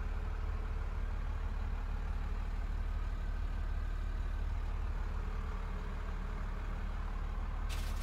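A motorhome's engine idling steadily, heard from inside the cab, a low even rumble. A brief hiss joins it just before the end.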